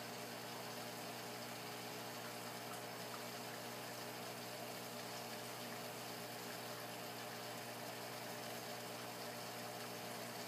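A steady electrical hum with many even overtones over a faint hiss, unchanging throughout.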